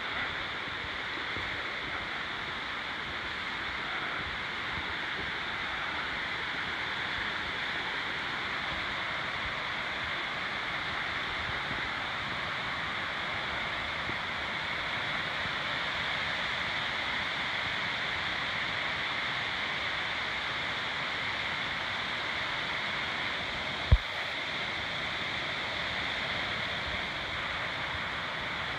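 Steady rush of flowing creek water, with one sharp knock near the end.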